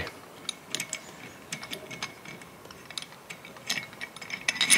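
Irregular sharp metallic clicks and ticks as the service rack is worked loose and turned over on the steel service mast, to be refitted right way up.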